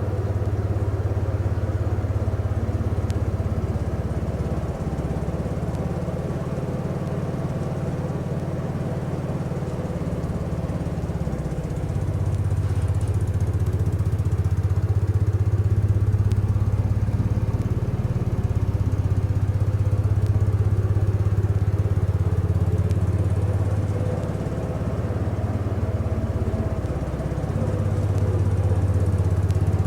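1975 Case 224 garden tractor's engine running steadily with its snow thrower, the engine note shifting and growing louder about twelve seconds in, and shifting again near the end.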